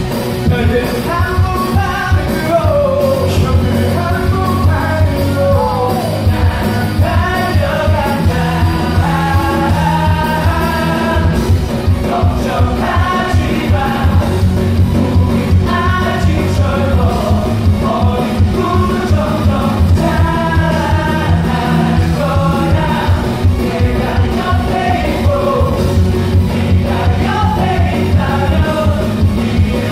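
Live rock band playing: a male lead voice singing a melody over electric guitar, electric bass, keytar and drums with a steady beat.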